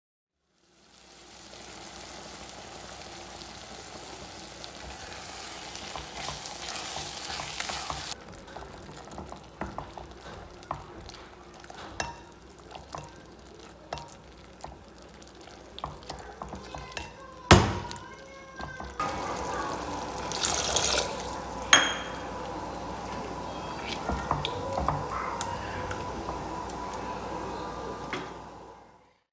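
Thick dal makhani simmering with a steady hiss in a pot, then a plastic potato masher mashing it: wet squelches and scattered knocks of the masher against the pot, with one loud knock about halfway through.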